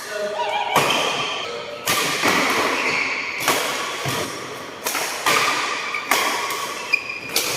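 Windstorm 79S badminton racket striking a shuttlecock in a rally: sharp hits roughly once a second, each with a short echo.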